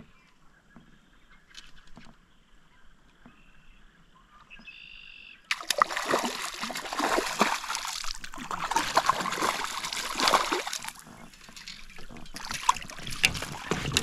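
A hooked trout splashing and thrashing at the surface close to the boat while being played to the landing net. The splashing starts suddenly about five seconds in, eases for a moment, then picks up again near the end.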